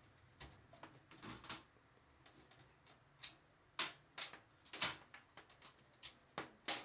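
Irregular plastic and metal clicks and knocks as the cables of a desktop PC are unplugged from the system unit. They are sparse at first and come thicker and louder from about three seconds in.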